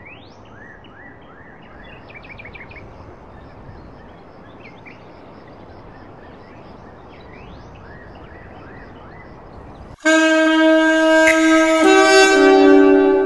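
Birds chirping over a steady outdoor hiss, then about ten seconds in an alto saxophone starts suddenly and loudly, playing a melody in long held notes.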